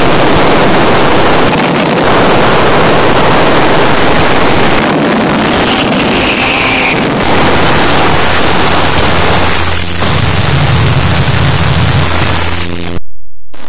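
Fireworks finale barrage: explosions so rapid that they merge into one loud, continuous roar that overloads the microphone. It cuts off suddenly near the end.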